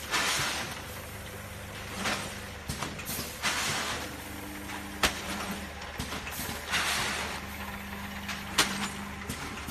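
KL-620 vertical granule packing machine running: a steady low hum with bursts of hiss every few seconds, and two sharp clacks, one about halfway and one near the end.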